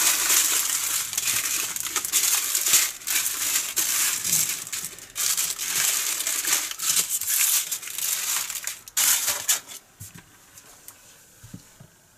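Small plastic bags of diamond-painting drills crinkling and rustling as they are handled and moved about, in two long spells with a brief break about five seconds in, stopping about ten seconds in. A few faint light ticks follow.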